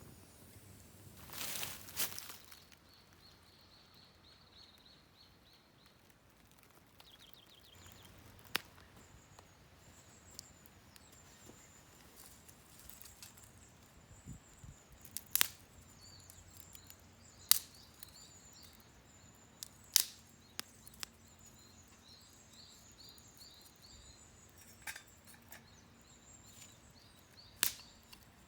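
Sparse sharp cracks and pops from a small wood fire, every couple of seconds, with a short hissing rush near the start. Small birds chirp faintly in the background.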